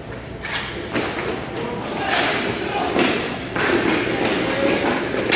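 A series of irregular thuds and knocks during a game, with voices in the background.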